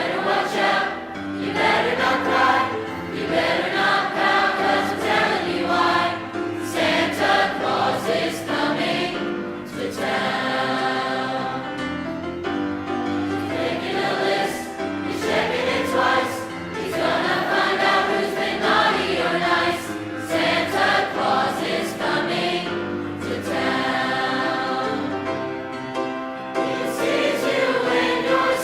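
A high school choir singing a Christmas song, many voices in harmony.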